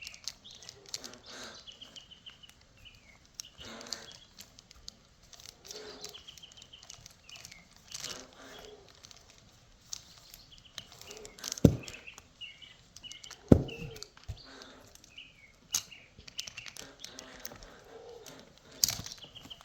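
Small birds chirping on and off, with scattered light clicks and two sharper knocks about halfway through from small parts and tools being handled.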